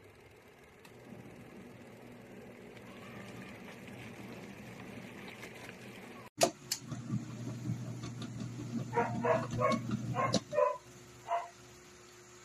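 Mini washing machine running with a steady low motor hum. The sound drops out for an instant about halfway through, and later a small dog gives a handful of short, sharp yaps.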